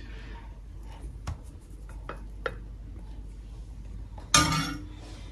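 Light clicks of a spoon against a plate as rice is spooned onto it, about five small taps over the first two and a half seconds, with one louder brief sound just after four seconds in.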